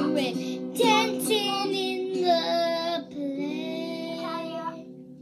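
A young girl singing with long held notes over a small acoustic guitar whose strummed strings ring underneath; her voice stops shortly before the end.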